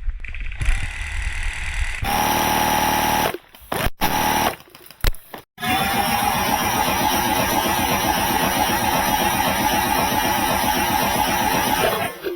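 Airsoft minigun firing: a steady motor whine over a fast rattle of shots. A short burst about two seconds in and a couple of brief stutters are followed by a long continuous burst of about six seconds that cuts off suddenly near the end.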